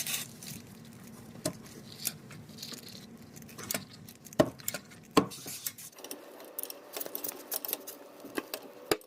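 Hand tools clinking and clicking on metal as a socket wrench works loose the 17 mm caliper-to-knuckle bolts on a car's front brake, with a few sharper knocks along the way.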